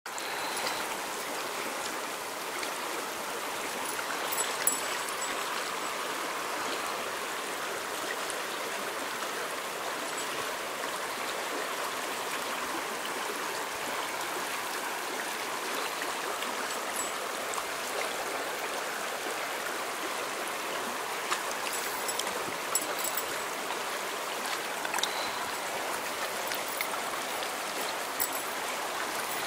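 Shallow stream running over stones, a steady babbling of water, with a few brief clicks about four seconds in and again near the end.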